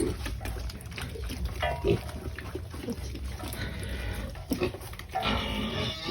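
Pigs at feeding time making many short, overlapping calls, with a longer, higher call near the end.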